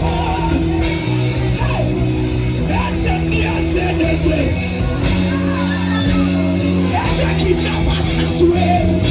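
Live church worship music: a band holding sustained chords, with singing voices over it.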